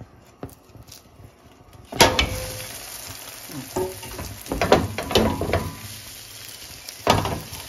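A moringa-leaf egg omelette turned over into a hot, oiled non-stick pan about two seconds in: it starts sizzling suddenly and loudly and keeps sizzling as the second side fries. A few knocks and scrapes sound over the sizzle, twice in the middle and once near the end.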